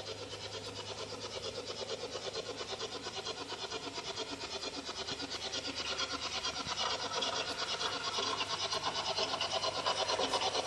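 Sound decoder in a G-scale Bachmann Spectrum Mallet model locomotive playing recorded steam-locomotive chuffing from a German Br 64, at a steady rhythm of about five chuffs a second that grows gradually louder, over a steady low hum.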